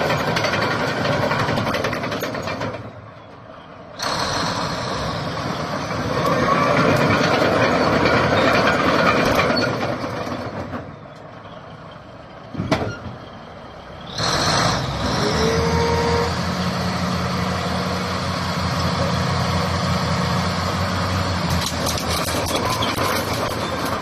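Diesel engine of a Shantui SD22 crawler bulldozer running. The sound drops away twice, briefly about three seconds in and for a few seconds around the middle, with one sharp click during the second drop and a short hiss as the engine sound comes back.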